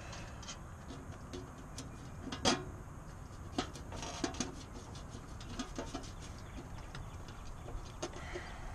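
A few small metallic clicks and taps as hex nuts are handled and started by hand onto bolts through a steel license plate on a mower, over a steady low rumble; the loudest click comes about two and a half seconds in.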